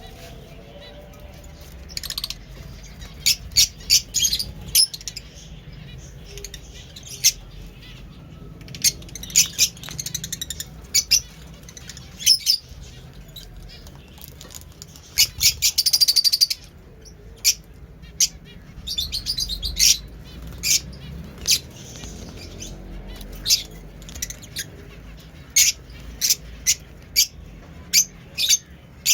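Fischer's lovebirds calling: sharp, high chirps in irregular quick clusters, with a longer rapid chatter about fifteen seconds in.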